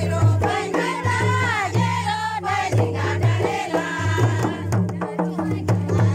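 A group of voices singing a Kurukh Karam folk song together, over the steady beat of mandar barrel drums.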